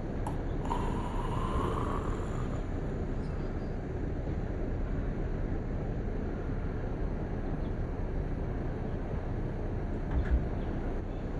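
Steady low rumble of outdoor background noise, with a faint rising tone about a second in and a single low bump near the end.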